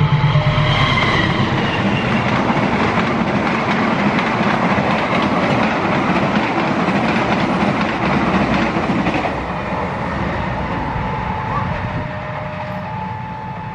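Argo Wilis passenger train hauled by a CC 201 diesel-electric locomotive passing at speed. The locomotive's engine is heard at first, then the coaches' wheels clatter over the rails. The sound fades from about nine seconds in as the train moves away.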